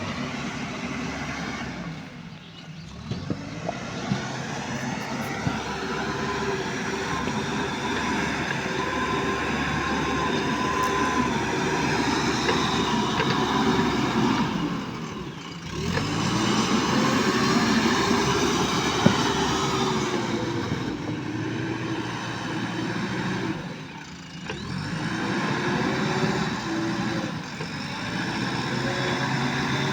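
JCB backhoe loader's diesel engine running under hydraulic load as it works the digging arm and bucket. Its revs dip and climb back three times, with a few light knocks near the start and one sharp knock past the middle.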